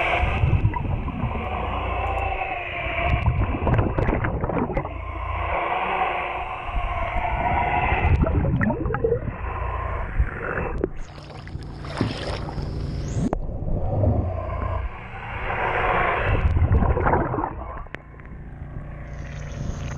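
Remora Solo rotary hull-cleaning brush running underwater, scrubbing thick slime and algae off a boat's hull, its motor and spinning brush heard through the water. Near the end there is splashing as the camera nears the surface at the waterline.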